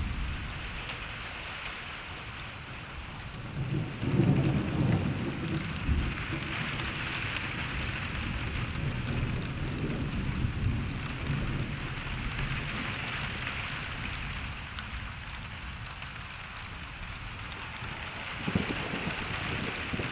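Thunderstorm: steady rain falling, with rolling thunder. A long rumble swells about four seconds in and rolls on for several seconds, and a shorter peal comes near the end.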